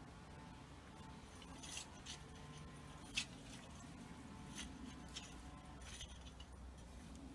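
Faint, scattered light clicks and clinks, about six of them over several seconds, the sharpest about three seconds in, over a low steady hum.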